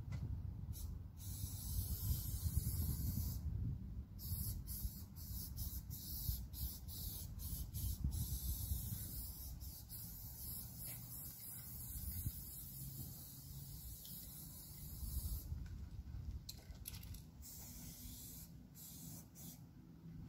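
Aerosol spray paint can hissing as paint is sprayed, in short spurts at first, then one long unbroken pass lasting about eleven seconds, then short spurts again near the end. A low rumble runs underneath.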